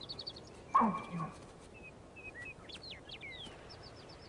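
An elk gives one short, pitched bleating call about a second in, with small birds chirping and whistling around it.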